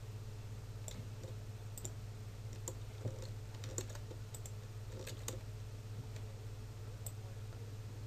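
Computer mouse and keyboard clicks, about a dozen at irregular spacing, over a steady low hum.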